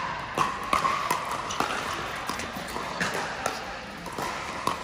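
Pickleball rally: paddles striking the hard plastic ball and the ball bouncing on the court, a series of sharp pops at irregular spacing, about one every half second, with a steady hall murmur beneath.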